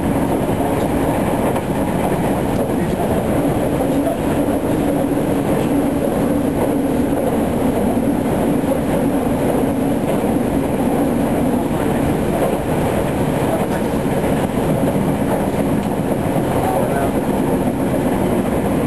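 Meitetsu 7000 series Panorama Car electric train running along the track, heard from inside its front observation cabin: a steady rumble of wheels and running gear with a low hum that fades about two-thirds of the way through.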